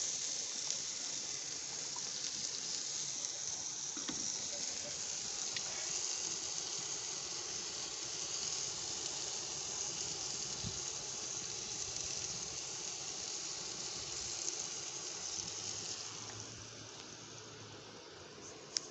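Chicken pieces sizzling on a gas grill: a steady hiss that fades away over the last few seconds.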